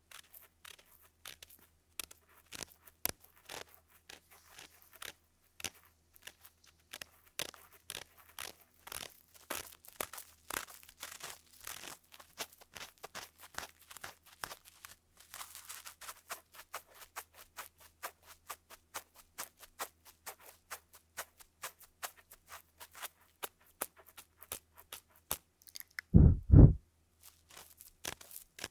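Ear-cleaning tool scratching and rubbing in the ear of a binaural microphone: a dense crackle of many small scratches and clicks. Near the end, two deep thumps about half a second apart are the loudest sound.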